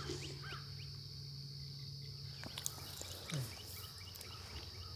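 Steady high-pitched insect drone, with a few short, scattered bird chirps over it.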